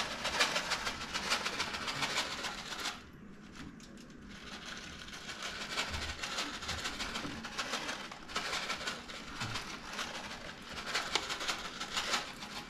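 Whole black peppercorns rattling as they are shaken from a plastic packet, with the packet crinkling; the shaking comes in spells, with a lull about three seconds in.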